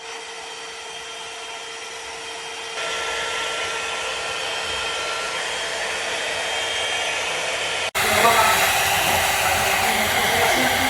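Hot air styler (rotating blow-dryer brush) running, its fan blowing steadily over a motor hum. It steps up louder about three seconds in, breaks off for an instant near eight seconds and comes back louder still.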